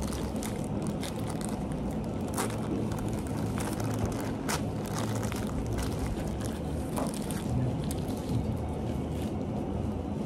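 Steady low rumble of background noise, with a few brief crackles of clear plastic wrap being handled around a lump of clay, about two and a half, four and a half and seven seconds in.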